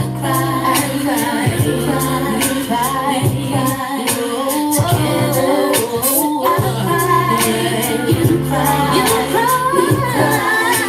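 Hip-hop song playing back, a sung melody over a steady bass line.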